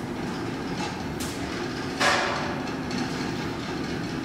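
Traction elevator car travelling, with a steady low rumble throughout. About two seconds in there is one short, sharp clack that is louder than the rumble.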